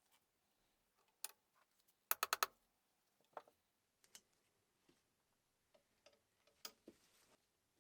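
Light clicks and taps from small parts and tools being handled, loudest in a quick run of four or five clicks about two seconds in, with single clicks scattered through the rest.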